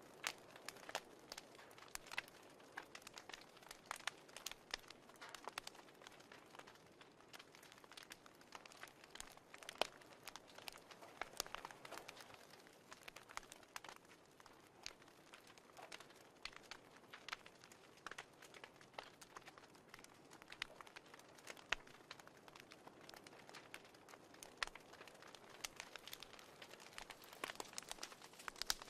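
Wood fire crackling in a fireplace: irregular sharp snaps and pops, several a second, over a soft hiss.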